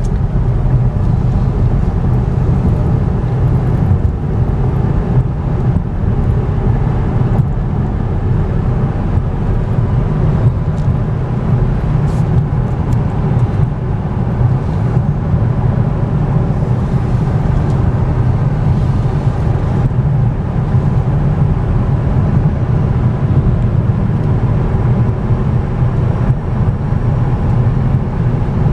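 Steady road and tyre rumble heard from inside the cabin of a moving 2014 Cadillac ELR, with a deep, even drone and no sudden changes.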